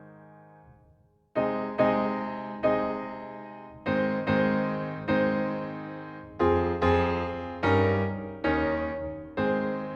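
Background piano music: gentle chords struck one after another, each left to ring and fade, after a short pause near the start.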